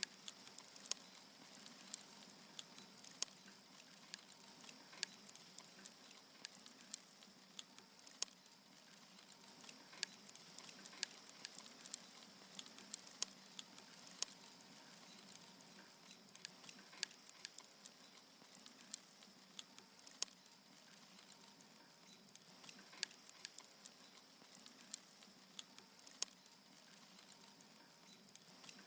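Firewood crackling as it burns: irregular sharp snaps and pops, several a second, over a faint steady hiss.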